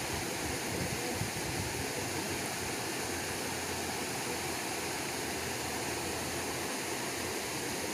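Steady, even rush of river water, with no distinct splashes standing out.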